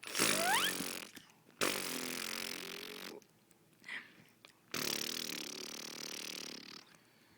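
A young child blowing raspberries, buzzing the lips together in three long blows, the last about two seconds long. A short rising squeal comes in the first.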